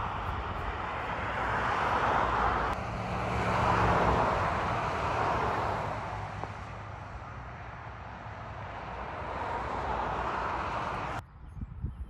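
Chorus of Brood X periodical cicadas, a steady mid-pitched drone that swells and fades, with a low hum underneath in the middle. It cuts off abruptly near the end.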